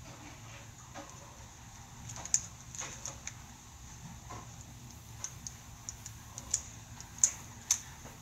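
Small plastic Bakugan toy pieces clicking and snapping as they are handled, in scattered sharp clicks at an uneven pace, more of them in the second half.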